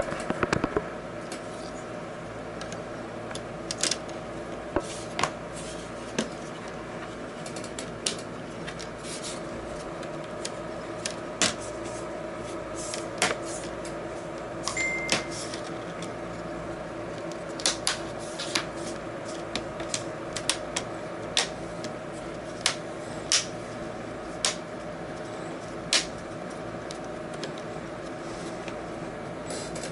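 Plastic display bezel of an HP Envy 15 laptop being handled and pressed onto the screen lid: scattered sharp clicks and taps, irregular, roughly one a second, over a steady low hum.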